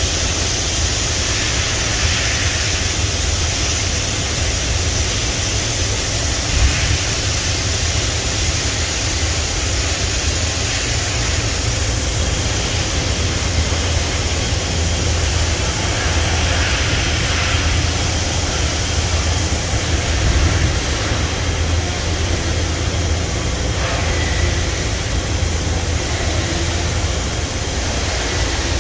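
Okuma MA-600H-II 4-axis CNC horizontal machining center running: a steady low hum under a constant hiss.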